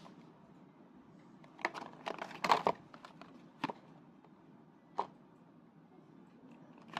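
Handling noises: a short bout of crinkling and crackling about two seconds in, followed by a few single sharp clicks spaced a second or more apart.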